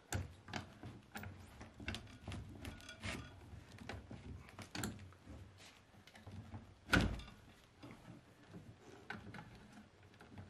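Scattered knocks and clunks of wooden beams and tools being handled, with one louder thunk about seven seconds in.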